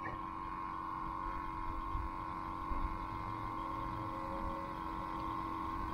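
Electric trolling motor running steadily: a low hum with a thin, steady high whine.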